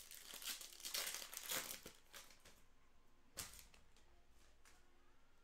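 Mosaic football card pack wrapper crinkling as it is torn open, a run of rustles over the first two and a half seconds, then one sharp crackle a little past three seconds in.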